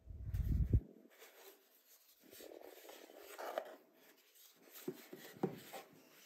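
A kraft cardboard box handled on a tabletop: a dull thud in the first second as it is lifted, then the cardboard rubbing and scuffing under the fingers as it is turned, and a couple of light taps near the end as it is set back on the table.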